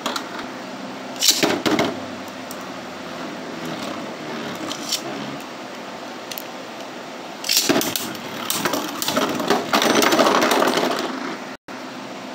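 Beyblade Burst spinning tops in a plastic stadium: a few sharp plastic clicks early on, then a top whirring steadily on the plastic floor, followed by louder clacking and scraping rattles in the second half.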